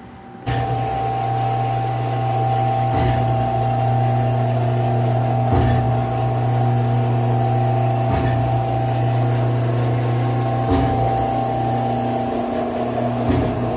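Biro AFMG 52 meat mixer-grinder starting up about half a second in, its grind motor and auger running with a steady electric hum alongside the turning mix paddles. A faint knock repeats about every two and a half seconds.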